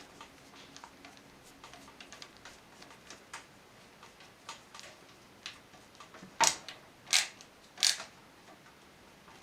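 Screws being driven into a PC case with a screwdriver to fasten the motherboard: a run of faint small ticks, then three sharp clicks about two-thirds of a second apart near the end.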